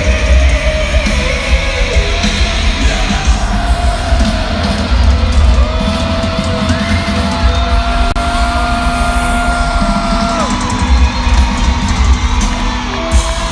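Live rock band playing loudly in an arena, recorded on a phone, with heavy bass and a singer holding long notes in the middle.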